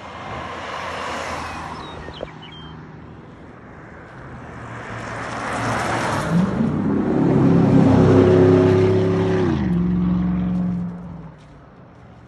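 Motor vehicles passing on a road: one goes by about a second in, then a louder one builds to a peak around eight seconds. Its engine note drops in pitch as it passes, and it fades away about eleven seconds in.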